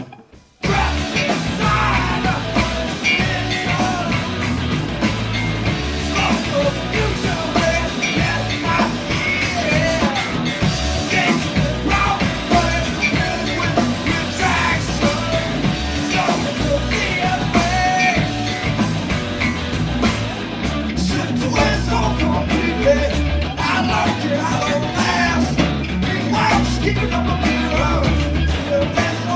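Rock band playing live with singing, the music starting abruptly just under a second in.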